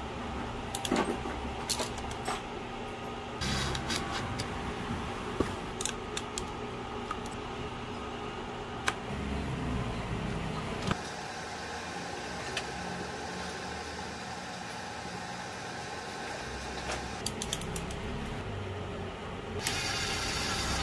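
Screwdriver and small metal parts clicking and clinking against DIN-rail circuit breakers and a perforated steel mounting plate as crimped wires are fitted and terminal screws tightened, over a steady room hum. Near the end a louder rasping hiss lasts about a second.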